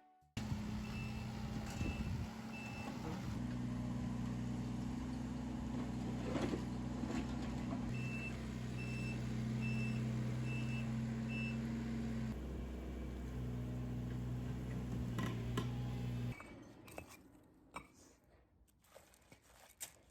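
Mini digger engine running steadily while its travel alarm gives short high beeps, three near the start and about six in a row midway, with an occasional knock. The engine sound cuts off abruptly about three-quarters of the way through, leaving faint scattered clicks.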